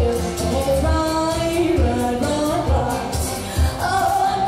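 Live country band playing, with a woman singing the melody into a microphone over keyboard, and a cajón beating out low thumps in time.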